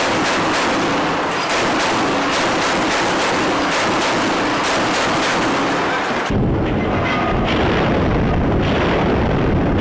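Mk 38 Mod 2 deck gun, a 25 mm Bushmaster chain gun, firing a string of single shots, about three a second, over a steady background noise. A little over six seconds in, the shots stop and a loud, low, steady rushing noise takes over.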